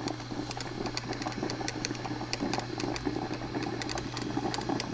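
1995 Black & Decker thermal carafe drip coffee maker gurgling and sputtering near the end of its brew cycle, with a steady low hum and irregular crackling pops as the last water is forced through as steam.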